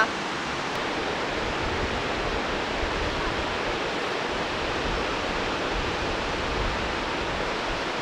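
Steady hiss of surf and wind at the seashore, an even wash of noise with no distinct events.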